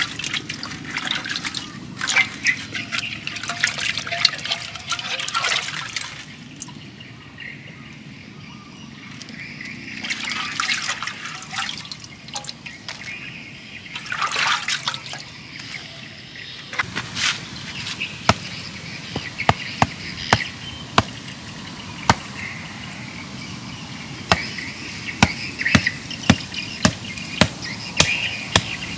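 Water sloshing and splashing in a clay pot as hands stir and scrub inside it, in several bouts. In the second half comes a run of short, sharp knocks of a knife cutting.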